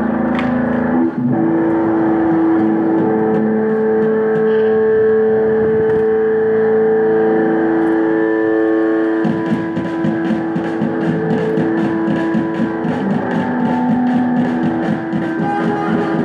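A live band's amplified electric guitar holding long droning notes; about nine seconds in, drums and cymbals come in with a steady beat under the drone.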